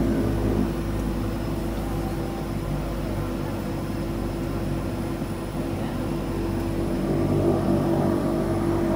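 Twin Pratt & Whitney PT6A turboprops of a DHC-6-400 Twin Otter running at low power on the ground, heard from inside the cabin: a steady drone with a constant propeller tone, growing a little louder near the end.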